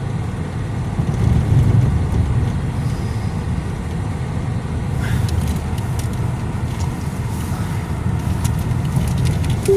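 A car running, heard from inside its cabin as a steady low rumble, with a few faint clicks in the second half.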